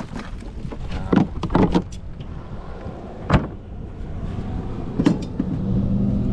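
Knocks and clatter of crabbing gear being handled in a boat, the sharpest a single knock a little past three seconds in as the cooler lid is shut on the catch of blue crabs. Near the end a motor's steady low hum starts up.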